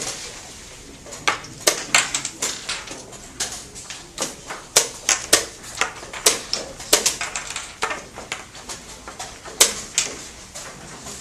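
Wooden chess pieces being picked up and set down on the board in a fast game, with chess clock presses: a quick, irregular string of sharp clicks and knocks, roughly two a second.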